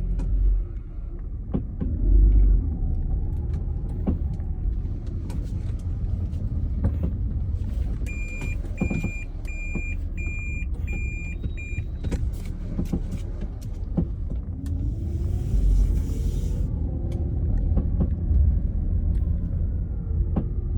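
2015 Toyota Prius pulling away and driving, a steady low rumble with the drive motor's whine rising and falling, and sharp isolated clicks every second or few: the clicking noise it makes when accelerating from a stop. About a third of the way in, a series of short, evenly spaced electronic beeps sounds for about four seconds.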